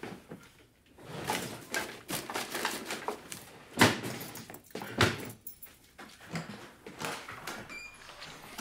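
Kitchen handling noise: rustling and clattering of objects being moved and set down, with two sharp knocks about four and five seconds in.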